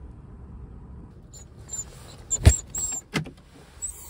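A small dog's short, high-pitched squeaky whines mixed with knocks and thumps of the phone being handled in the car, the loudest thump about halfway through. Before that, a low steady rumble of the car cabin.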